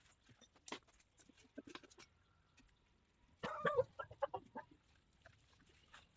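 A short clucking bird call about three and a half seconds in, among faint scattered clicks and taps.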